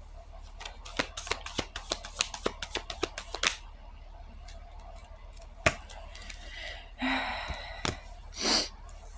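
Deck of reading cards being shuffled and handled: a quick run of clicks and snaps for about three seconds, then a few separate taps and two short rustles near the end.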